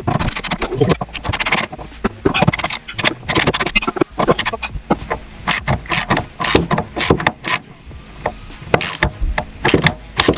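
Quick, irregular metallic clicks and knocks of a wrench working the fuel tank strap nut loose.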